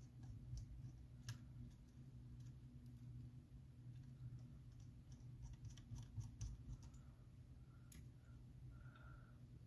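Faint, scattered clicks of a small precision screwdriver and tiny screws being handled as the screws of the iPhone's internal metal bracket are driven back in, a little cluster of them past the middle and a sharper click near the end.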